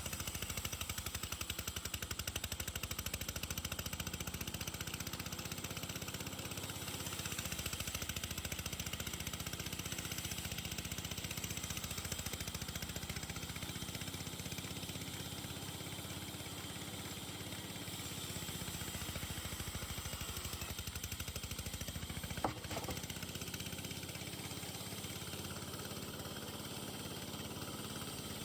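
An engine running steadily at an even speed, with one sharp click about twenty-two seconds in.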